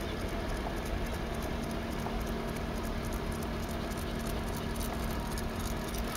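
Car rolling slowly, heard from inside the cabin: a steady low engine and road noise, with a steady hum that comes in about a second in and a light patter of tyres on the road surface.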